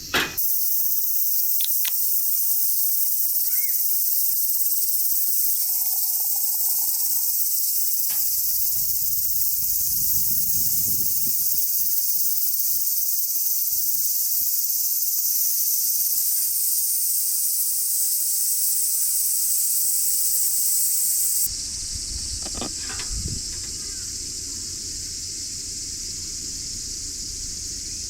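Steady high-pitched insect chorus. About three quarters of the way through it cuts to a quieter hiss with a low rumble underneath.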